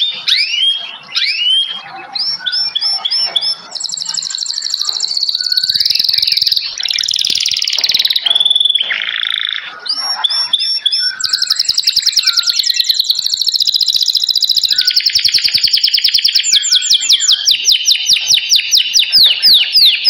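Several songbirds singing and calling together: varied whistles, falling sweeps and chatter, then, from about halfway through, a long fast run of short repeated notes.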